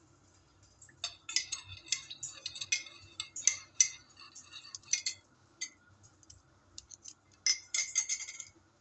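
A metal teaspoon clinking and scraping against a ceramic mug as tea is stirred, in a run of quick strikes for about four seconds, then a short second run near the end.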